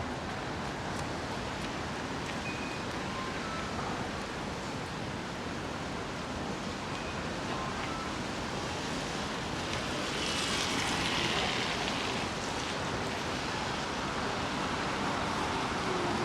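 Steady hiss of rain and wet city street noise. A louder wash of tyre hiss swells and fades about ten to thirteen seconds in as a vehicle passes on the wet road.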